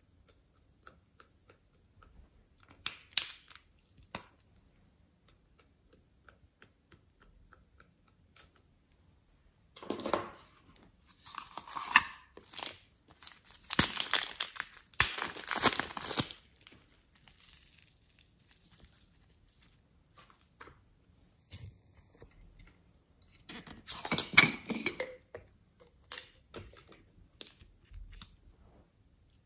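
Crinkling and tearing of a small plastic packet being pulled open by hand, in several noisy bursts, loudest in the middle and again briefly later on, with faint taps and clicks of handled items in between.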